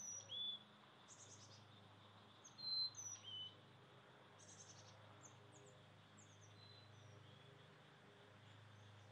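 Carolina chickadees calling: short, high, thin chirps, some sliding quickly down, mixed with buzzy notes. They are loudest near the start and again about three seconds in, then thin out to fainter chirps.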